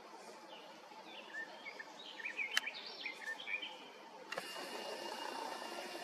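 Song thrush singing short, varied chirping phrases, with one sharp click about halfway through. About four seconds in the sound switches abruptly to a steady hiss with a faint high whine.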